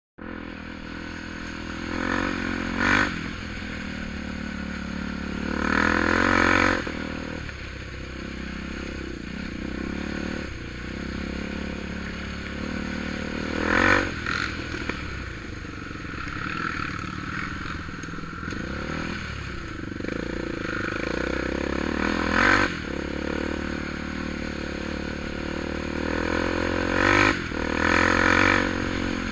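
ATV engine running steadily, with several short revs that rise and fall back.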